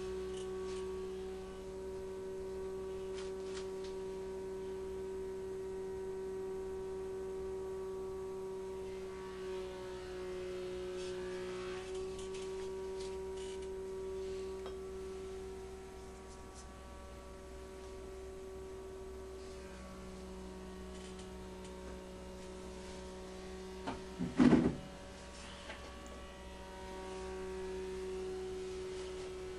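Steady mechanical hum at one pitch, with a few faint taps and one brief, louder knock about three-quarters of the way through.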